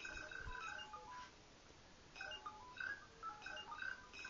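Faint electronic beeps and chirps at shifting pitches, several a second, from a Power Rangers card-scanner app playing through an iPod's small speaker, with a short lull about two seconds in.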